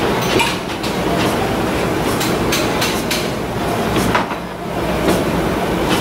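Workshop machinery running, with a steady rumble and irregular clattering knocks.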